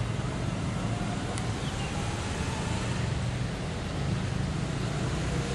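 Passenger train's coaches running away along the track: a steady low rumble of wheels on rails.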